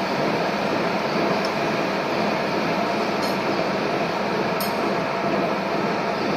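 Steady machine running noise with a faint hum, as in a workshop, broken by two short metallic clinks a little over a second apart about halfway through.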